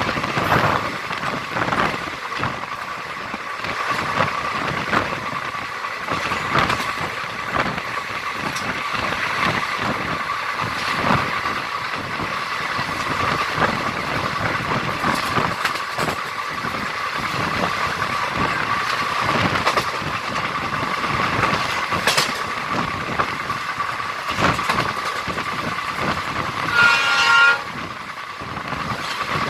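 Indian express passenger train running on the track: steady wind and running noise with irregular clicks of the wheels over rail joints. A short horn blast sounds near the end.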